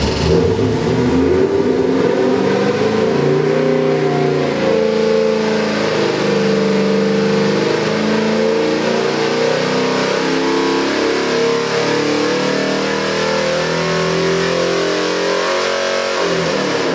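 Chrysler 440 big-block V8 running on an engine dyno under full-throttle load through a sweep test, its revs climbing steadily from about 1,000 to about 5,500 rpm.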